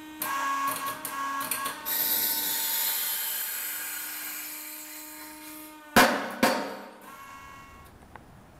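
Hydraulic press pump and ram whining steadily with a hiss while the ram pushes down on an interference-fit bush. Two loud sharp bangs come about two-thirds of the way through, half a second apart, as the bush breaks free and is forced down through the housing.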